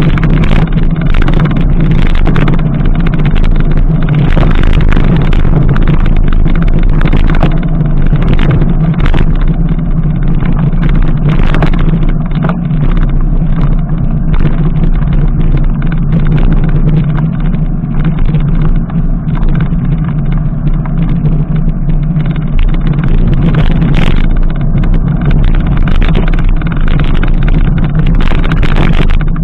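Mountain bike coasting fast downhill on a gravel road: a loud, steady rush of wind on the bike-mounted camera's microphone and tyres on gravel, with frequent clicks and rattles from the bike over bumps.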